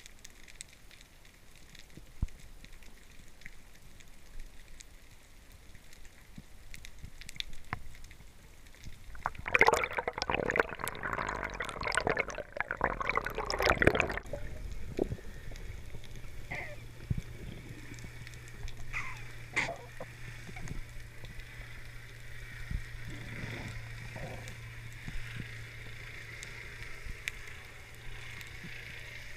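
Water noise recorded through an action camera's underwater housing, with scattered faint clicks. About ten seconds in comes a loud burst of bubbling and splashing lasting about four seconds, then a steady low hum.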